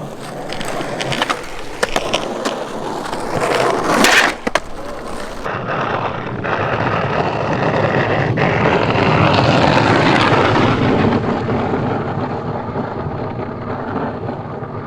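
Skateboard wheels rolling on pavement, with several sharp clacks of the board in the first few seconds and a loud crack about four seconds in. Then a long roll that grows louder and fades away.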